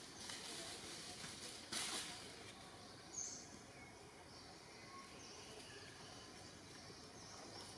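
Quiet outdoor ambience: a steady faint hiss with a few short, faint bird chirps, and one brief rustle just under two seconds in.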